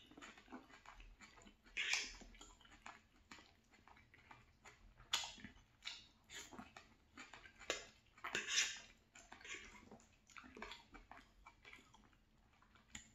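Close-up chewing and crunching of a chicken and vegetable stir fry with bean sprouts and peppers: irregular wet mouth clicks and crunches, with a few louder bursts about two, five and eight seconds in.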